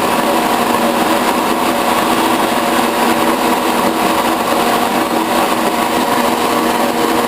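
Metal lathe running steadily as it takes a cut on a part, with the metal shaper running in the same shop; the motors' steady hum.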